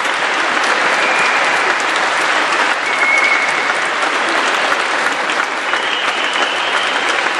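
Audience applauding steadily in a large, echoing church hall, with a few thin high tones now and then over the clapping.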